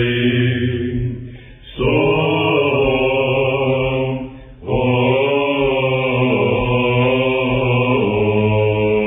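Male voices chanting a Byzantine Orthodox hymn in plagal fourth mode, a melismatic melody over a steady low drone (ison), with two short pauses between phrases. The sound is dull and narrow, as on an old radio recording.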